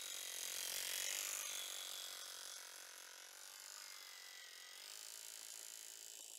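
Lombardini LDA96 single-cylinder air-cooled diesel of a Pasquali two-wheel tractor running under load as it works a rotary tiller through the soil. It is loudest about a second in as the tractor passes close, then fades as it moves away.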